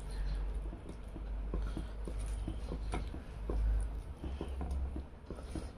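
Close-up eating sounds: chewing with wet mouth clicks, and fingers mixing rice and fish curry on a plate. Irregular soft clicks over a low rumble.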